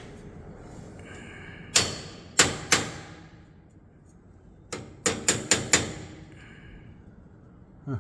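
Hammer striking a pin punch, metal on metal, to knock a stuck pop rivet in: three sharp ringing blows, a pause, then five quicker blows.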